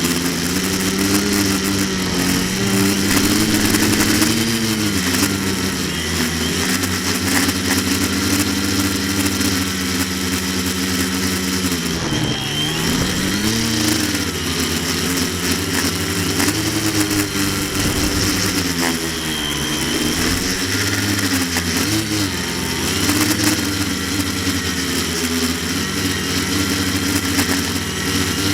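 Quadcopter's electric motors and propellers running in flight, their pitch repeatedly rising and falling as the throttle changes.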